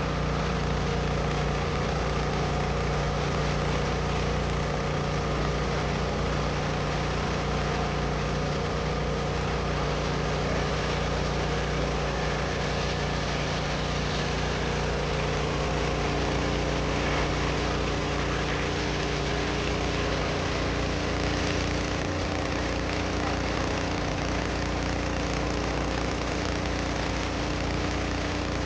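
An engine running steadily at a constant speed, with a steady hiss over it.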